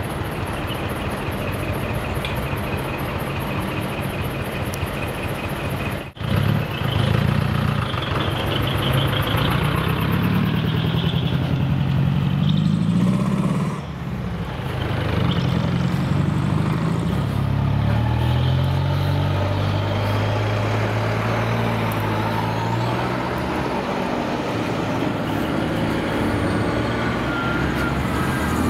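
Heavy decorated trucks (dekotora) with split-manifold exhaust driving off one after another. Their diesel engines rise in pitch in steps as they accelerate through the gears. There is a brief sudden drop in the sound about six seconds in.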